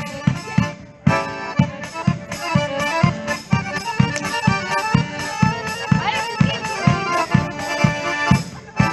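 Folk band playing a lively traditional tune: accordion melody over a steady beat on a hand-held frame drum, about two to three beats a second.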